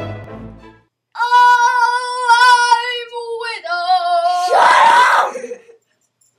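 A high-pitched voice sings two long held, wavering notes, the second lower, then breaks into a scream about four and a half seconds in. Violin music fades out in the first second.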